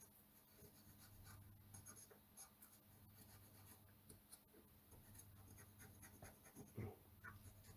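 Faint, scattered light scratching and ticking of a small tool or brush working over a circuit board, over a low steady hum.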